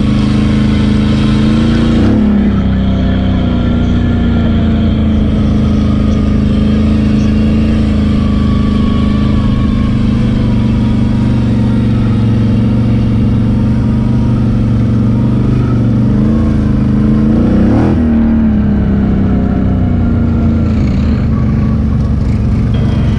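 ATV engine running steadily under way, heard from on the machine. The revs rise briefly about two seconds in and climb and fall again near eighteen seconds.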